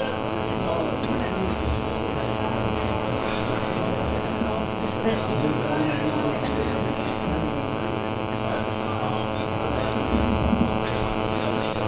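Steady electrical hum through a public-address system, made of many even tones, with faint voices underneath. It cuts out near the end.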